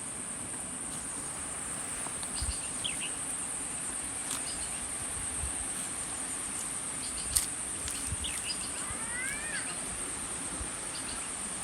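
Steady high-pitched drone of insects, with short bird chirps here and there and one rising-then-falling call about nine seconds in. A few soft thumps and one sharp click about seven seconds in.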